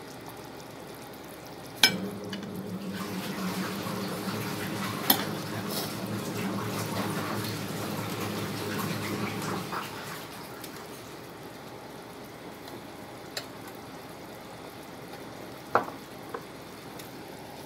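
A pot of beef and ginger broth boiling on a portable stove, with a sharp metal clink of a ladle against the pot about two seconds in and a few lighter clinks later.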